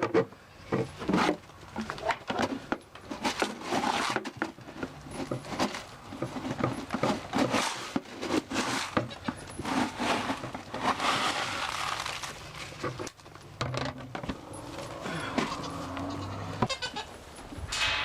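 Animals calling during feeding, mixed with many short rustles and knocks.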